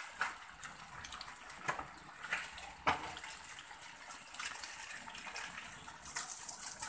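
Beef, onion and chilli sizzling in a frying pan over a low gas flame: a steady hiss with scattered crackles and pops.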